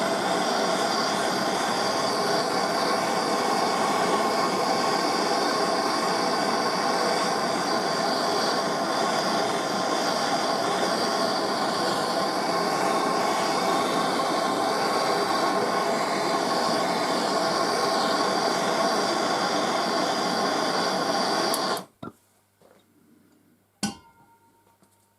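A machine tool running steadily, a dense mechanical hum with several steady tones, which cuts off abruptly about 22 seconds in. A couple of seconds later comes a single sharp metallic clink that rings briefly.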